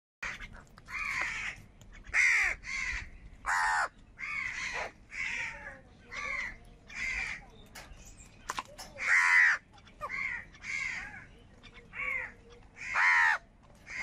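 House crows cawing over and over in a flock while squabbling over food, short harsh caws following one another about once or twice a second, each dropping in pitch, some much louder than others.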